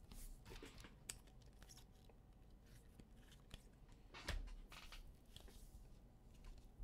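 Faint handling of trading cards: cards sliding, shuffling and tapping against each other in the hands, with a soft knock about four seconds in.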